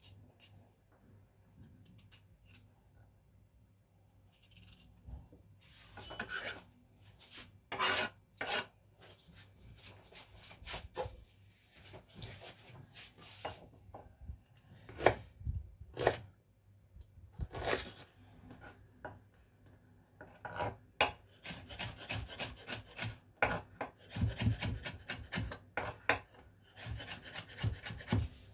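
Kitchen knife being honed on a steel rod, with separate metal scraping strokes. It is then used to chop on a wooden cutting board: sharp knocks of the blade on the board, and a fast run of chopping strokes over the last several seconds.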